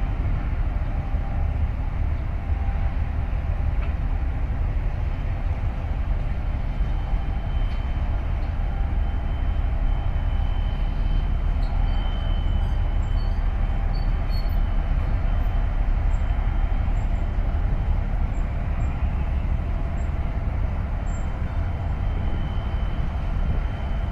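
Steady low rumble of ship engines, with a faint steady high whine over it.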